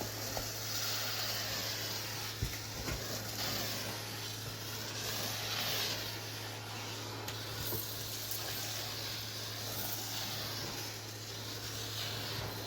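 Vacuum cleaner running, its hiss swelling and fading every couple of seconds as it is pushed back and forth over the floor, with a few small knocks, the sharpest about two and a half seconds in.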